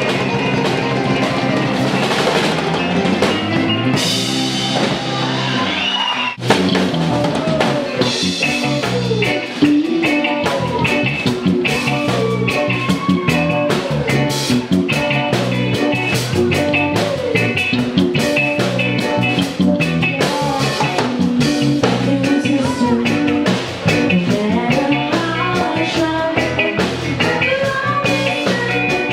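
Live band music with drum kit, bass guitar and electric guitar, and a woman singing over a steady beat. The music changes abruptly about six seconds in, then settles into a new rhythmic section.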